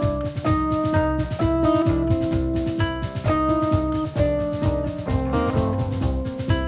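Background music: an upbeat instrumental track with a drum kit beat and pitched guitar-like notes.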